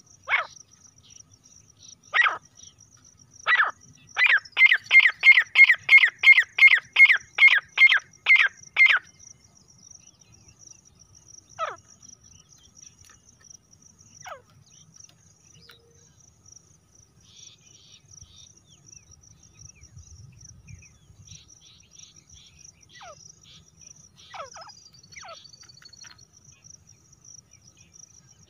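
Female grey francolin calling: three sharp single notes, then a fast run of about a dozen loud notes, roughly three a second, each sweeping downward. Fainter single notes follow at intervals.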